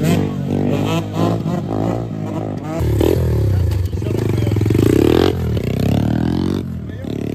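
Small single-cylinder pit bike engines revving repeatedly, the pitch sweeping up and down several times.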